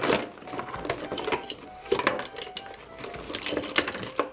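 Plastic Play-Doh tubs and toy accessories clattering and knocking together, with a cardboard box rustling, as the set's contents are tipped out by hand. Soft background music underneath.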